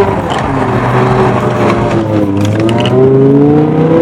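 BMW E60 M5's V10 engine revving hard under acceleration with traction control switched off, through a loud aftermarket exhaust; the revs drop at the start, dip again about halfway, then climb toward the end.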